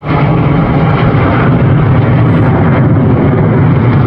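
Loud, steady jet aircraft noise from aerobatic display jets overhead.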